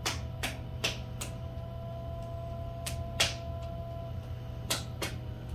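Electric potter's wheel running with a steady low hum and a faint whine while clay is thrown on it. Short sharp clicks come over it, mostly in pairs: four near the start, then two about three seconds in and two about five seconds in.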